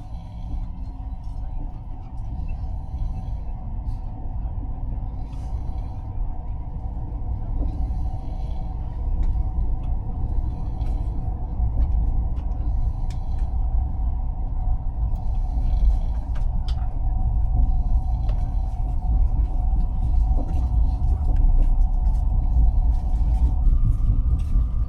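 Passenger train running, heard from inside the carriage: a steady low rumble under a steady mechanical whine, with scattered creaks and rattles. The whine steps up in pitch near the end.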